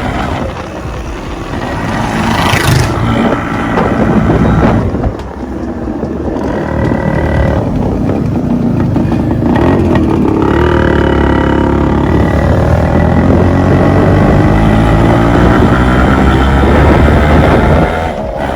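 Modified Yamaha RX two-stroke single-cylinder motorcycle running loudly through its exhaust, revving up and down in several separate passes.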